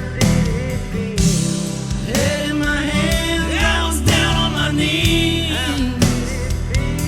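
Background song: a singer's voice over a band with guitar, bass and a steady drum beat.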